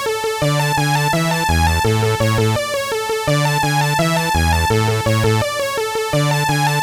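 Background electronic music with a steady beat: synthesizer bass notes and chords changing in a regular rhythm.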